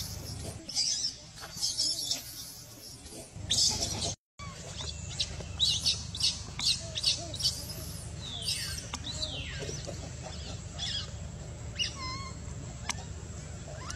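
Baby macaque screaming in distress: repeated short, high-pitched squeals, some gliding downward, broken by a brief dropout about four seconds in.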